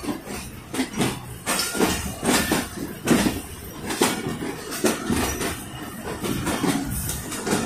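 Train wheels running over rail joints and points at low speed, with irregular sharp clacks one or two times a second over a steady running noise, heard through an open coach window.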